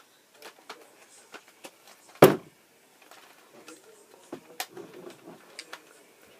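Small plastic clicks and knocks of a toy foam-dart blaster being handled, with one loud thump a little over two seconds in.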